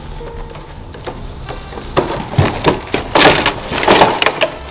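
A stiff packaging box being handled and worked open by hand, crackling and crunching in bursts from about two seconds in.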